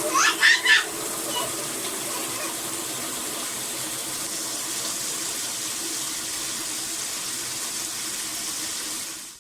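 Steady rush of running water, with a few short, high, rising squeaks about half a second in; the rush cuts off suddenly at the end.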